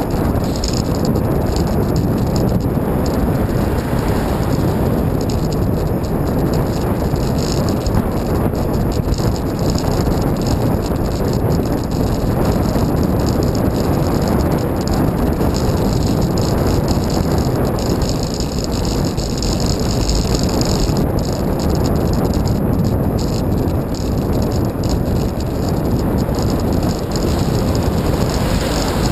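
Steady wind rush over the microphone and rattling from road vibration, picked up by a camera mounted on a moving bicycle.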